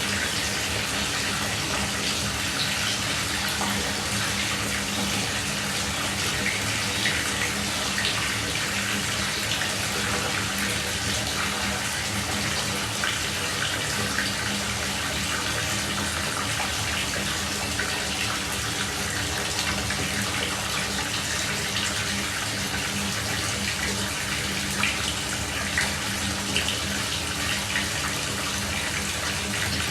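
Shower running steadily, water spraying and splashing with small irregular spatters.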